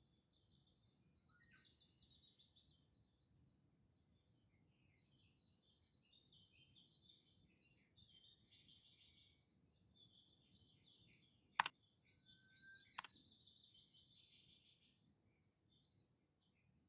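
Faint wild birds chirping and twittering on and off. Two sharp clicks about a second and a half apart, roughly two-thirds of the way in, are the loudest sounds.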